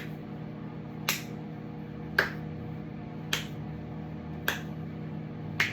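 Microwave oven running with a steady hum. A sharp click sounds about once a second, louder than the hum.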